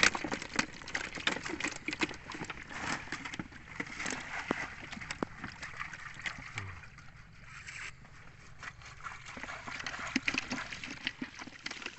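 A bamboo fish trap being shaken and handled over a wire-mesh keep net: many scattered clicks and rattles, with water dripping and trickling. The rattling is busiest in the first half and thins out around the middle.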